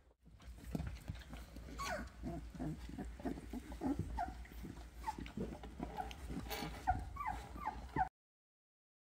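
Two-and-a-half-week-old Doberman puppies whimpering and giving short, high squeaks that fall in pitch, coming quickly one after another in the second half. The sound cuts off suddenly about a second before the end.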